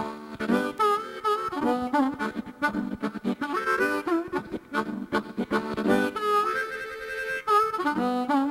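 Blues harmonica playing a short run of phrases, with many notes bent up and down in pitch.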